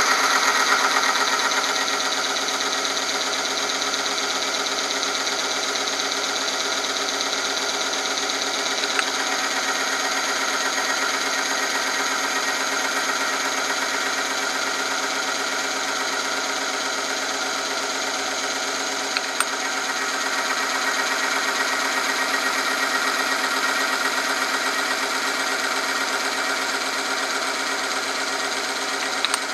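Oil-film strength tester running under load: its electric motor hums and the spinning steel ring grinds against the test sample in an oil bath, giving a steady whine. Three short clicks about ten seconds apart, as more weights go onto the load lever.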